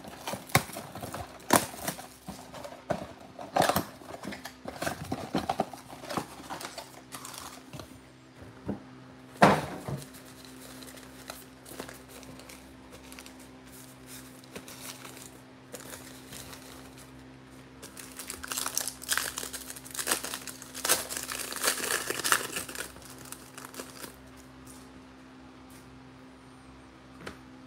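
A cardboard trading-card mega box being torn open and its foil card packs crinkling and tearing as they are handled and opened. The crinkling comes in two stretches, one at the start and one about twenty seconds in, with a single sharp knock about nine seconds in.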